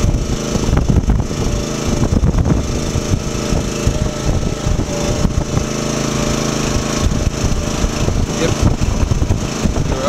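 A towable boom lift's small engine runs steadily, powering the hydraulics as the lower boom is brought down, with an uneven low rumble over it.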